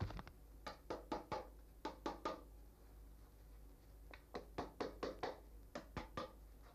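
Quick runs of short taps and knocks as nails are fixed through a fox pelt into a wooden stretching board: one run in the first two seconds, another a couple of seconds later.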